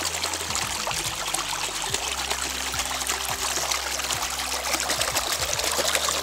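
Water running and trickling steadily along a shallow earthen irrigation channel, fed from a spring-fed pond.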